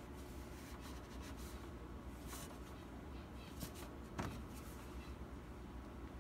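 Faint rustling of clothes being handled and pulled out of a dryer drum, with a few light clicks and one soft knock about four seconds in, over a low steady hum.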